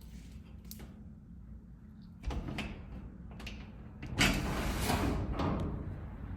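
Sectional garage door on newly wound torsion springs rolling up along its tracks: a few clicks, then a low rumble starting about two seconds in, with the loudest rattle around four seconds in.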